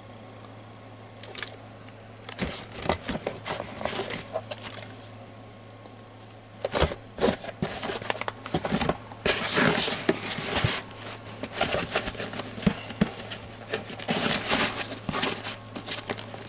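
Cameras and camera gear being handled and rummaged through in a box: clicks, clinks, scrapes and rustling, busier and louder from about seven seconds in.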